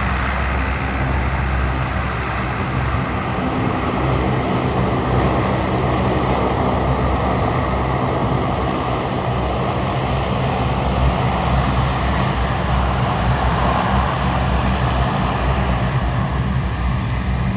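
Aircraft engines running at the airfield: a steady, loud rumble and roar that swells a little about three quarters of the way through.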